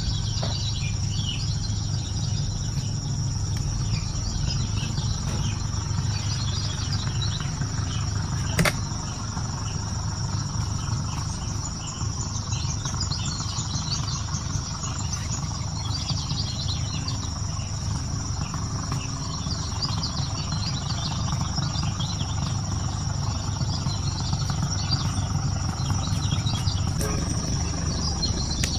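Night insects, crickets, keep up a steady high trill with scattered chirping over a low, steady rumble. A single sharp click comes about nine seconds in.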